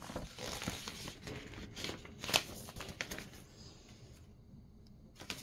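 Paper rustling as a printed cross-stitch pattern sheet is handled, with a sharper tap about two seconds in, then dying down to faint handling noise.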